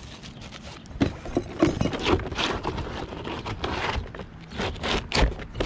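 A plastic roof box vent being shoved up under asphalt shingles: its flange scrapes, rustles and knocks irregularly against the gritty shingles as it is worked into place.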